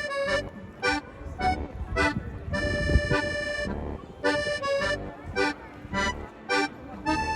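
Background music: a light tune played as a run of short, separated notes, with one longer held note in the middle.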